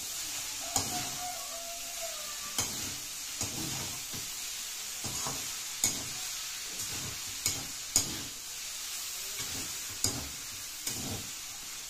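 Boiled chow mein noodles sizzling as they stir-fry in a hot metal wok, tossed with a fork that clinks sharply against the pan every second or two.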